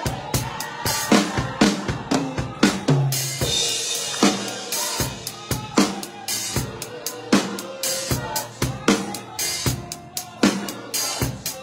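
Drum kit played with sticks: a rhythmic groove of repeated bass drum and snare strokes.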